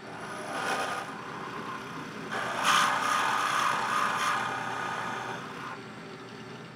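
Drill press running with a steady motor hum while a 1/2-inch bit bores a counterbore into a hardwood block. The cutting noise grows louder from about two and a half seconds in, then eases as the bit is lifted out near the end.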